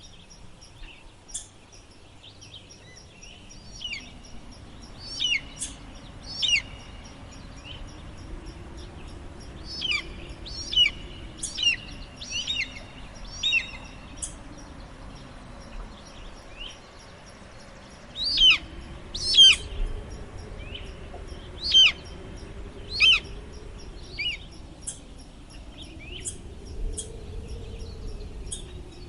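Eagle calling in clusters of short, high, falling chirps, over gentle wind that swells and eases in slow waves.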